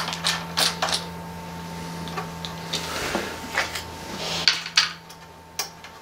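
Scattered light metallic clicks and taps as a small screwdriver works screws out of the steel back plate of an opened NAS chassis, over a low steady hum that fades about halfway through.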